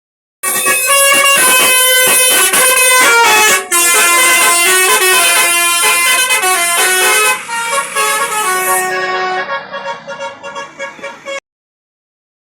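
Basuri telolet bus horn, a set of electric horns playing a tune in quick stepped notes. It comes in loud, wavers and fades over the last few seconds, then cuts off abruptly.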